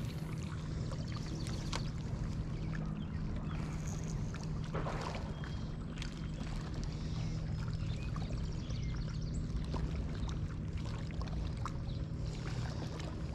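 A boat's motor humming steadily at one low, even pitch, with faint scattered clicks over it.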